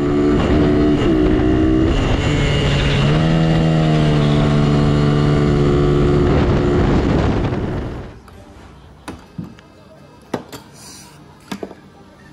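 Mini bike engine running hard at high revs, its pitch rising once about three seconds in and then held steady, ending about eight seconds in. After that, quieter room sound with a few light clicks and knocks.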